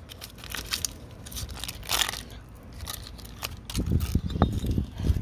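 A rock and a plastic makeup stick handled on a gritty concrete sidewalk: scattered clicks and a scraping crunch, then a run of knocks and thuds near the end as the rock is shifted on the concrete.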